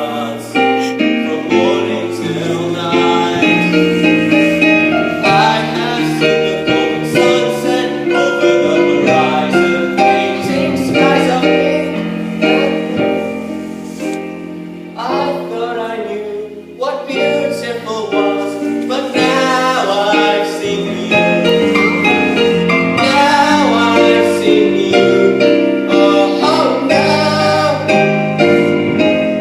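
A stage-musical ballad sung over instrumental accompaniment.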